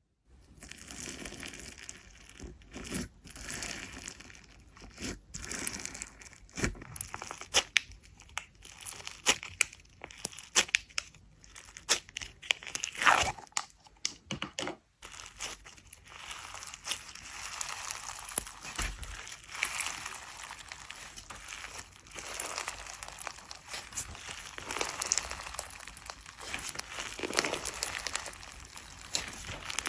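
Slime being squished, stretched and pressed by hand, making dense crackling with many sharp popping clicks.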